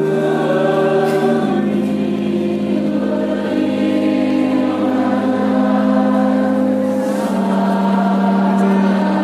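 A group of voices singing a slow hymn together in long held notes that change every second or two.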